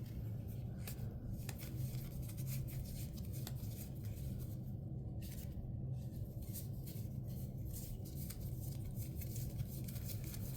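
Faint irregular rustling and clicking of trading cards being handled and flipped through by hand, over a steady low hum.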